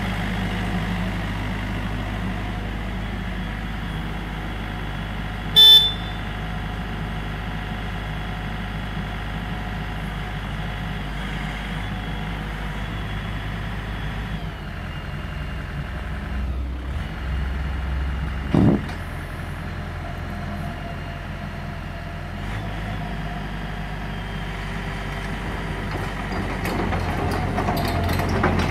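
Mini excavator's four-cylinder Yanmar 4TNE98 diesel running steadily while the boom, arm and bucket are worked, its low note shifting about halfway through. A short, loud horn toot comes about six seconds in, and a brief knock comes about two-thirds of the way through.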